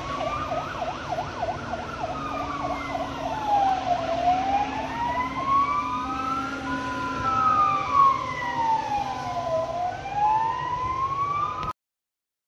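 Several emergency-vehicle sirens sounding together as the vehicles approach. A slow wail rises and falls, a fast warbling yelp runs over the first few seconds, and a two-tone hi-lo siren joins about halfway. The sound cuts off abruptly near the end.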